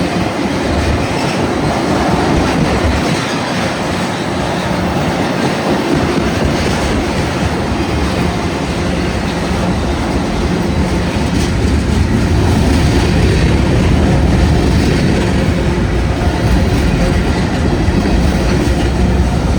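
Union Pacific freight train's cars rolling past, steel wheels running on the rails in a continuous rumble with clacking over the rail joints. It grows a little louder and heavier in the second half.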